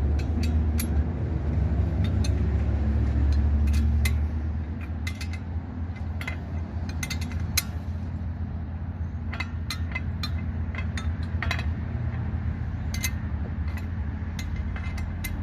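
Wrench working the 21 mm caliper bracket bolts on a brake assembly, with irregular sharp metal clicks and clinks as the wrench is turned and reset. A steady low hum runs underneath and eases off about four seconds in.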